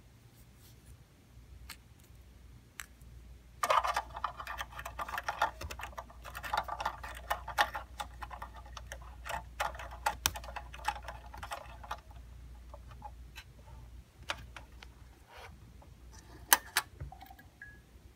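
Plastic clicking and crinkling as hands handle a glow starter and fit it into a small fluorescent light fixture, with fingernails tapping on the plastic. A couple of sharp clicks come near the end as the fixture is switched on and the fluorescent tube starts.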